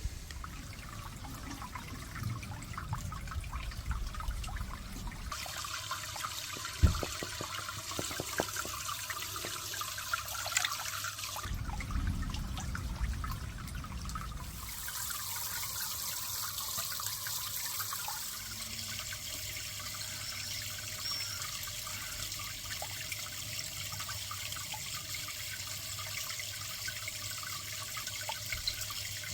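Water trickling and splashing steadily into a garden pond, with a single sharp tap a few seconds in.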